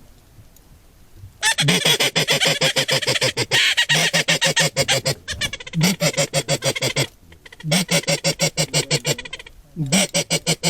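Duck call blown in five runs of rapid chattering pulses, about nine a second, each run opening with a short rising note.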